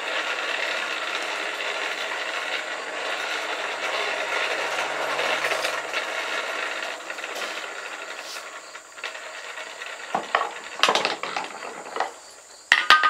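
Hand-cranked forge blower turning, a steady rush of air that fades out after about eight seconds. Near the end come a few sharp metal knocks, the last with a brief ring.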